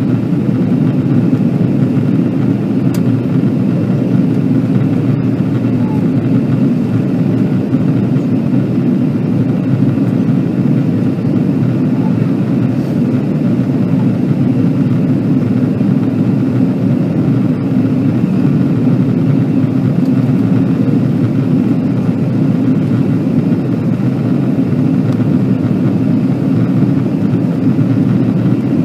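Steady cabin noise of an Airbus A330-200 in flight, heard from a window seat over the wing: a constant rush of engine and airflow noise, deep and even, with no changes.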